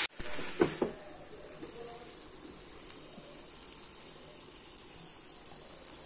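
Fish skewers sizzling faintly on the hot ribbed plate of an electric contact grill, a soft even hiss, with a couple of brief knocks a little under a second in.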